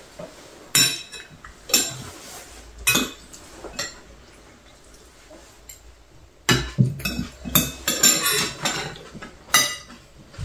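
Spoons and chopsticks clinking against ceramic bowls while eating: irregular sharp clinks with a brief ring, coming close together for a couple of seconds past the middle.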